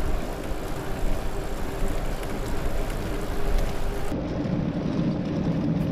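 Wind rushing over an action-camera microphone, with tyre roll, while riding a recumbent trike. About four seconds in the sound cuts abruptly to a duller rumble with a low steady hum.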